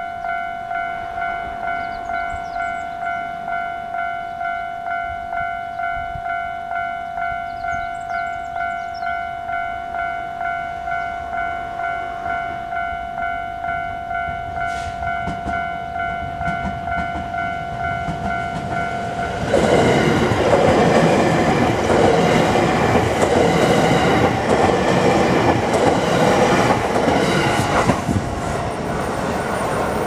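A Japanese railway level-crossing alarm rings in a steady, repeated ding, about two to three strokes a second. About two-thirds of the way in, an electric commuter train passes over the crossing with a loud rush and wheel clatter over the rail joints, which covers the bell and dies down near the end.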